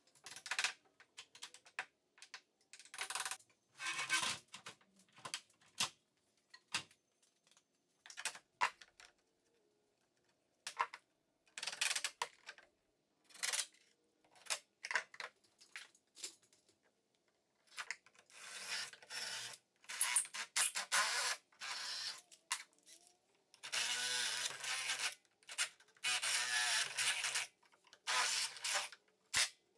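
Intermittent shop work: short scrapes, knocks and rustles of hands and tools, then, in the second half, several runs of a few seconds each from a Makita cordless impact driver turning a long drill bit into a wooden beam.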